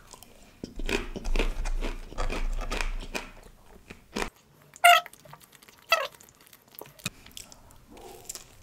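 Close-miked chewing and crunching of crisp chips for a couple of seconds, followed by a few short, sharp mouth sounds as he finishes.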